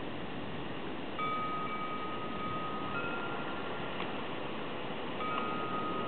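Cast bronze bells of a wind bell sculpture ringing. There are three separate strikes, about a second in, at about three seconds and near the end, each ringing on as a clear tone over steady background noise.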